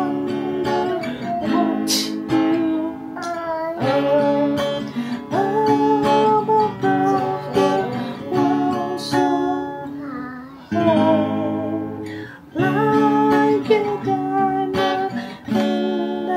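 Epiphone acoustic guitar strummed in slow chords, with a voice singing a melody over it. The playing breaks off briefly twice, about two thirds of the way through.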